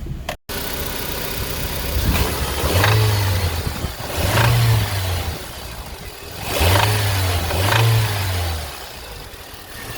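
2005 Honda Civic DX's 1.7-litre four-cylinder engine running and being revved four times, in two pairs of short blips. This is the engine whose rod knock is being diagnosed.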